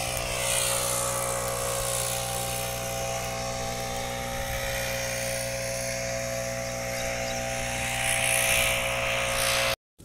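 A steady droning hum of several held tones under a hiss that sweeps slowly up and down, cutting off suddenly near the end.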